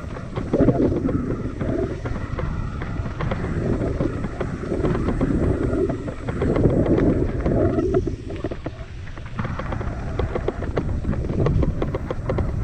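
Wind buffeting the microphone in uneven gusts over a steady rumble, with many small rattles and clicks throughout.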